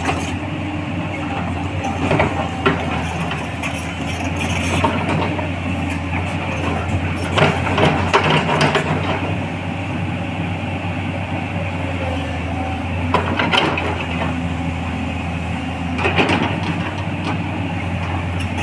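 Diesel engine of a 210LC-class hydraulic excavator running steadily, with a low hum and several short clanks and scrapes of the machine working, loudest about a third of the way in.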